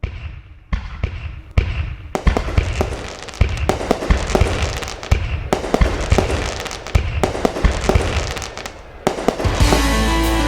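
Fireworks going off: a fast string of bangs and crackles, sparse at first and then coming several a second. Music with a steady low note comes in near the end.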